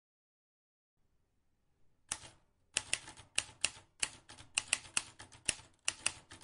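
Typewriter-style key clacks, a typing sound effect: quick, irregular clicks at about four a second that start about two seconds in, after near silence.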